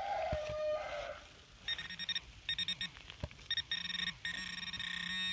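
Handheld metal-detecting pinpointer probing a muddy hole, sounding its alert in bursts of rapid high beeping, the longest burst near the end: it is picking up a metal target in the soil. A short lower electronic tone sounds in the first second.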